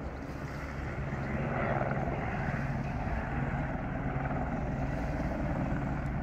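Firefighting helicopter in flight: a steady rotor and engine noise with a low hum.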